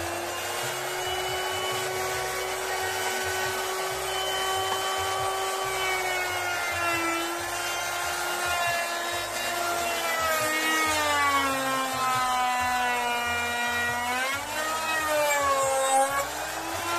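Electric wood router cutting a door tenon, its motor running with a steady high whine. The pitch sags lower through the middle as the bit bites into the wood, then wavers near the end.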